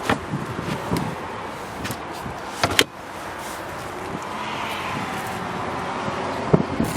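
Clicks and knocks from the estate car's retractable load-area cargo cover being handled, the loudest a sharp double click about three seconds in, over steady outdoor background noise.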